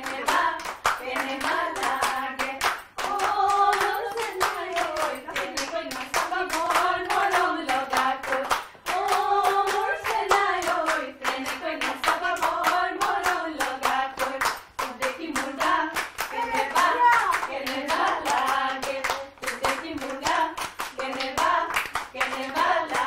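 A group of women clapping their hands in a steady rhythm along with singing.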